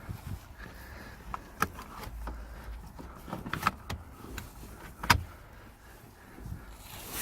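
Irregular clicks and knocks of objects being handled, the sharpest knock about five seconds in.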